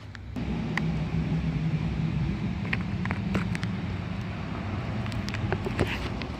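A motor running steadily, a low hum that starts suddenly about half a second in and holds, with a few faint scattered clicks over it.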